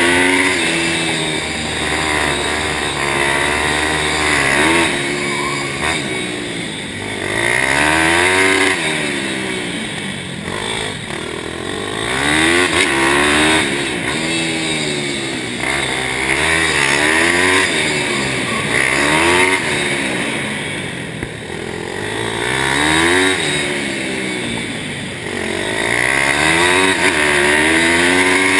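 A Pitster Pro pit bike's single-cylinder four-stroke engine, ridden hard, revving up and dropping back again and again as the throttle opens and closes. Each rise in pitch lasts about a second or two before it falls away.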